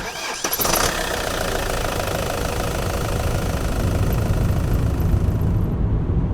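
A vehicle engine starting, then running steadily.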